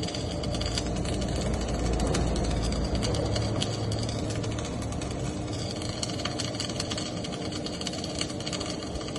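Electric arc welding: a steady crackle of fine clicks over the continuous hum of a welding machine.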